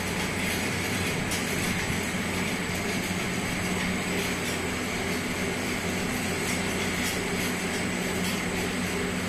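Steady drone of cable-factory machinery running, with a low electrical hum underneath.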